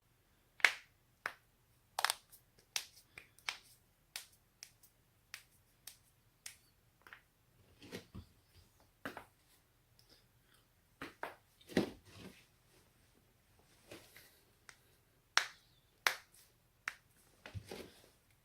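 Spinal joints cracking, as in neck and back cracking: a long run of sharp, short pops, irregularly spaced, some coming in quick clusters of two or three, the loudest less than a second in.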